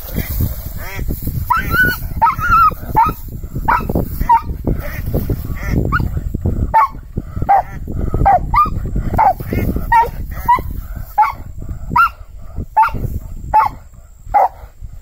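A dog whining and yipping in excitement, a string of short high cries about one to two a second, with splashing and rustling noise under them in the first half.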